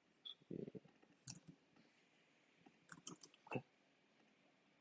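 Faint computer mouse and keyboard clicks in a few short clusters, about half a second, a second and a half, and three seconds in, as a value is copied and pasted into a web form.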